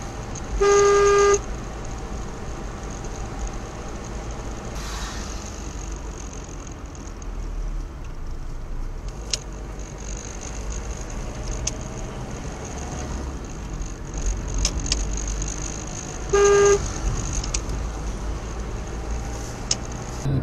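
A car horn sounds twice, one steady note each time: a blast of about half a second near the start and a shorter one about sixteen seconds in. Between them the vehicle's engine and tyres run with a steady low rumble, heard from inside the cab.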